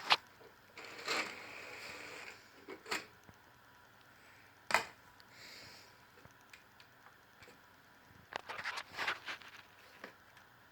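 Scattered sharp clicks and knocks, with a quick cluster of clicks about eight to nine seconds in.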